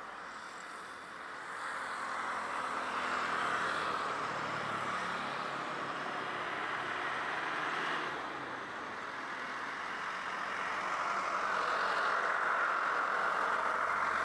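Boeing 737-800's CFM56 jet engines running at taxi power: a steady rushing whine that swells about two seconds in, dips briefly past the middle and swells again.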